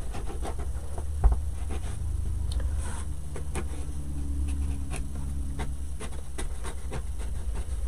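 Paint marker being worked over a small wooden cutout: faint scratching and tapping of the marker tip, with one louder knock about a second in, over a steady low hum.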